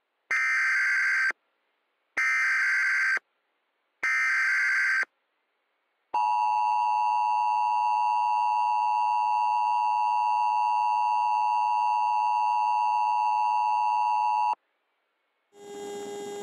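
Emergency Alert System tones from a homemade mock alert: three one-second bursts of SAME header data, then the steady two-tone attention signal for about eight seconds, cutting off suddenly. Together they announce the start of a new alert. A fainter hiss with tones begins near the end.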